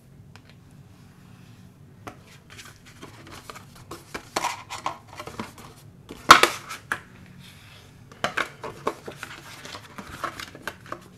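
Bone folder creasing the score-line folds of a cardstock spine, with paper handling: a run of uneven short scrapes, rustles and taps, the loudest about six seconds in.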